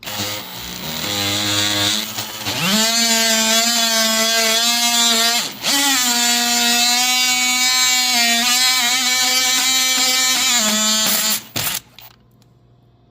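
Power tool cutting into the wooden door frame to remove the damaged bottom piece: a steady, high-pitched whine that rises as it comes up to speed, dips briefly, then stops near the end with a short final burst.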